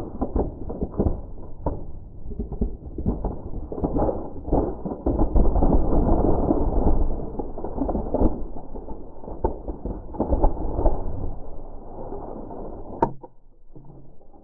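Slowed-down sound of a car tyre rolling over and crushing a LEGO Technic Ferrari 488 GTE model: a dense run of plastic cracks and crunches over a low rumble, heaviest in the middle. One sharp crack comes near the end, then it quietens.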